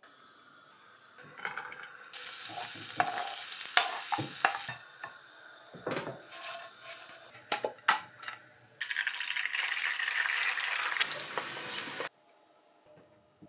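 Food sizzling in a hot frying pan in two stretches, each starting and stopping abruptly, with clicks and knocks of utensils against the pan in between.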